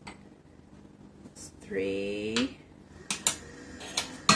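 Metal teaspoon clinking against a small stainless saucepan as alum powder is spooned into hot water, a few sharp clicks in the second half, the loudest near the end.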